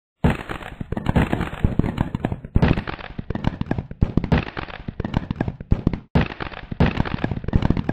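Fireworks going off in quick succession: a dense string of sharp bangs and crackles that starts suddenly, breaks off for a moment about six seconds in, and resumes.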